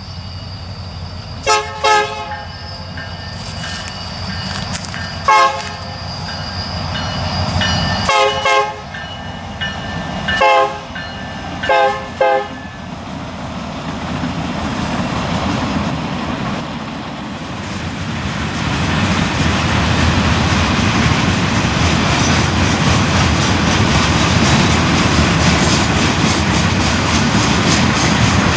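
Norfolk Southern freight locomotive air horn sounding a string of short blasts over the first dozen seconds, over the rumble of the moving train. After that, the wheels of the passing freight cars clatter on the rails, growing louder and steadier.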